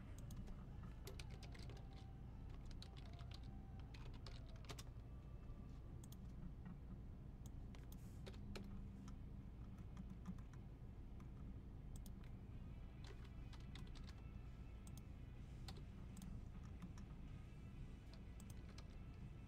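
Faint, irregular clicking of typing on a computer keyboard, over a low steady hum.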